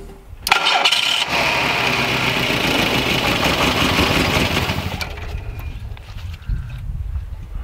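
VW Rabbit Pickup's engine cranking and starting about half a second in, running loudly for about four seconds, then dropping to a lower, steady idle.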